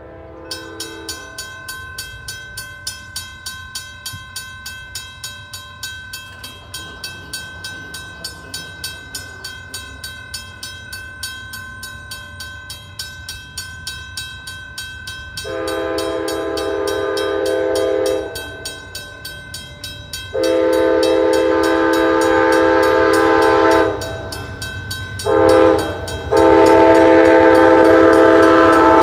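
A grade-crossing warning bell rings rapidly and evenly. Then an approaching Amtrak locomotive's horn sounds two long blasts, a short one and a final long one, the standard grade-crossing signal. The loudness builds as the train reaches the crossing.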